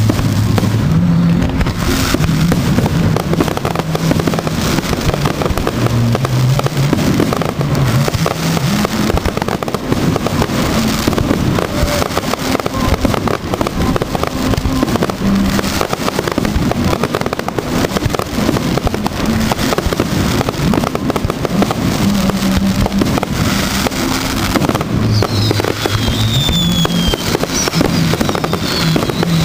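Fireworks display with shells bursting in a continuous rapid run of bangs and crackling, music playing underneath. A few high falling whistles come near the end.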